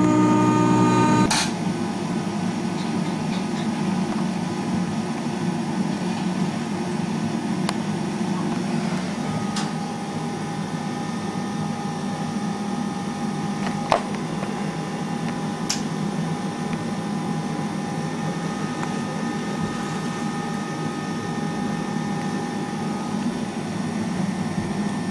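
CNC wood router running steadily: a constant machine whirr with faint steady whining tones, and a single sharp click a little past the middle.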